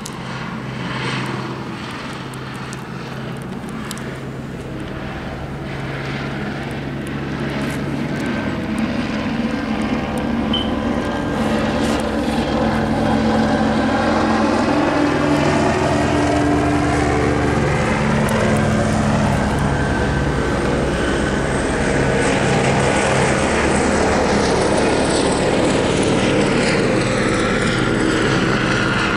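Police helicopter circling overhead, its rotor and engine chopping steadily. It grows louder over the first dozen seconds as it draws nearer, then holds steady, the sound slowly sweeping as it circles.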